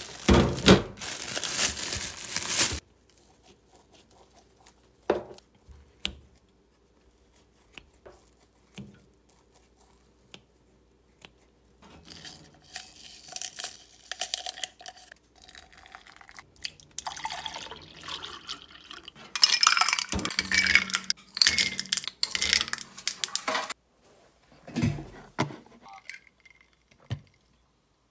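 A plastic bag crinkling loudly for the first few seconds as it is handled, then scattered clicks and a long stretch of glass-and-ice clinking and liquid pouring while an iced coffee is made in a tall glass, busiest a little past the middle.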